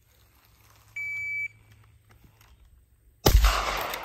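Shot timer beeps once, a steady half-second tone. About two seconds later a bolt-action rifle fires one loud shot that rings out and fades.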